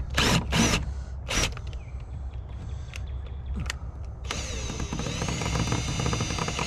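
A few short scraping noises, then a power drill's motor whining up to speed about four seconds in and running steadily, as a screw is driven to fix a tool hook to the wall.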